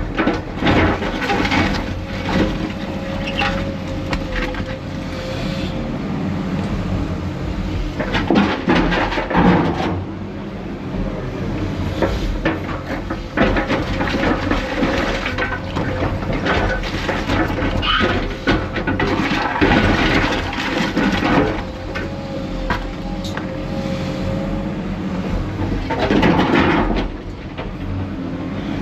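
Heavy diesel machinery running steadily while a Cat 330F excavator loads broken concrete with a demolition grab. Loud crashing and scraping comes several times as the concrete is dropped into the Hydrema 922F dumper's steel body.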